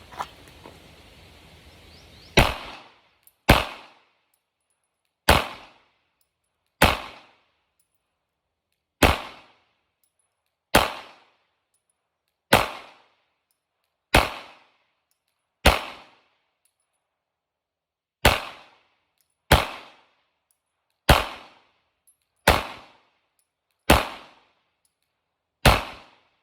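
Glock 19 9mm pistol firing fifteen single shots at a steady, unhurried pace, roughly one every one and a half to two seconds, each a sharp crack with a short ringing tail.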